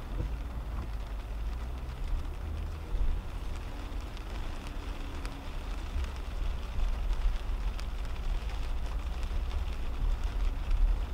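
Cabin noise of a 2010 Toyota Camry driving on a wet road in heavy rain: a steady low rumble from the car and its tyres under a hiss of spray and rain, with faint ticks of raindrops on the windshield.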